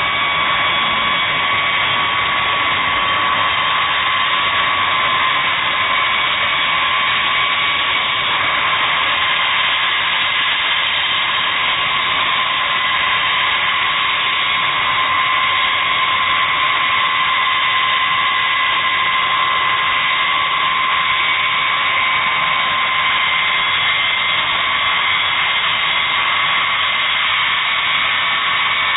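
B-52 Stratofortress jet engines running as the bomber taxis: a steady, loud rushing noise with several high whining tones held throughout.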